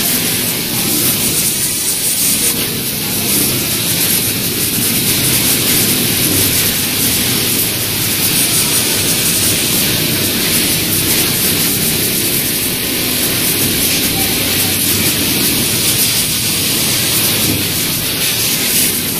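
Automatic pattern sewing machine running steadily, its stitching mechanism a continuous low churn under a constant loud hiss.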